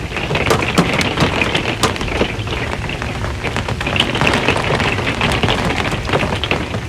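Steady rain falling on the metal roof of an RV: a dense, irregular run of drop impacts over a constant wash of rain.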